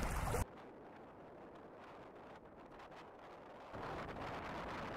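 Wind on the microphone and water noise aboard a small sailboat. It drops abruptly to a faint hiss about half a second in and comes back up to a moderate noise near the end.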